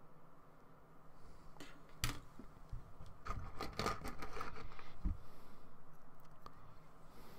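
Plastic model-kit parts being handled and set down on a hard surface: a sharp click about two seconds in, a run of small clicks and rattles around four seconds, and a dull knock near five seconds.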